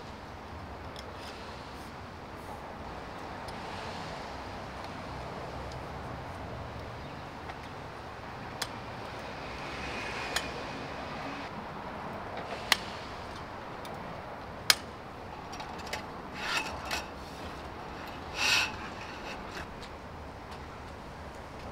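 Scattered sharp clicks and light rubbing of metal poles being fitted into a folding camp table frame, over a steady background hiss. A louder clatter with a brief ring comes near the end.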